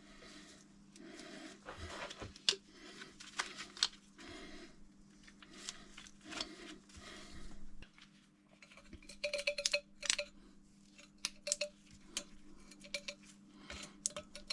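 Hand grease gun being pumped into a grease fitting on a floor jack: soft strokes repeating about every two-thirds of a second, then a run of light metallic clicks and clinks about two-thirds of the way through, over a faint steady hum.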